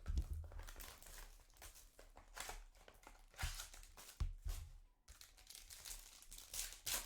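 Card pack wrappers crinkling and tearing, with cards being handled, in irregular rustles and crackles.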